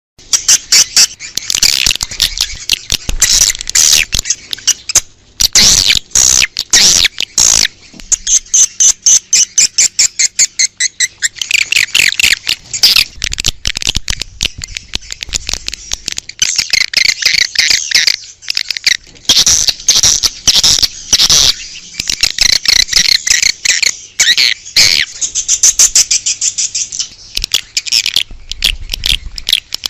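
Swiftlet calling-sound recording: dense, rapid twittering and chattering chirps from many swiftlets, with brief gaps between bursts. It is the outdoor lure sound played to draw swiftlets to a nest house.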